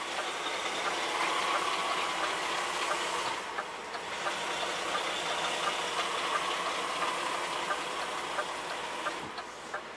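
Cab noise inside a 530 hp DAF XF 106 tractor unit as it manoeuvres slowly: the engine and running gear make a steady hiss, with faint regular ticks through it.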